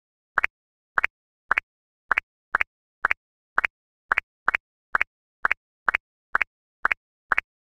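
A run of about fifteen short cartoon "pop" sound effects, roughly two a second, each a quick upward-sweeping blip with silence between them, marking parts popping into view.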